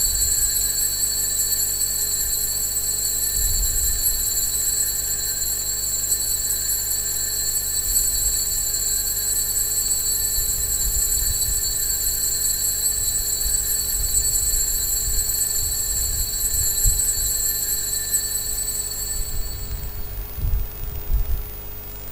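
Altar bells shaken continuously in a steady high-pitched ringing that marks the blessing with the Blessed Sacrament in the monstrance. The ringing stops about two seconds before the end, and there are a few low thumps of handling.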